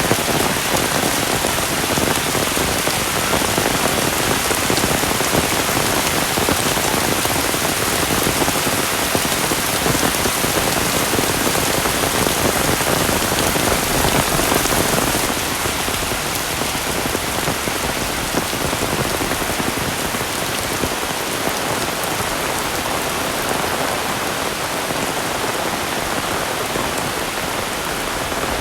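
Heavy rain falling, a dense steady hiss of countless drops. About halfway through it becomes slightly quieter, with less low rumble.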